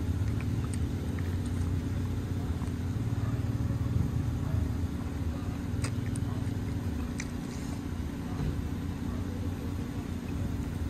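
Steady low mechanical rumble and hum, louder in the first half and easing off after about seven seconds, with a few faint clicks.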